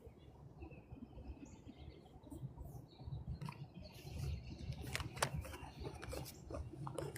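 Dry fallen leaves crackling and rustling underfoot in irregular sharp clicks, busiest about five seconds in, over a low rumble, with a few faint bird chirps.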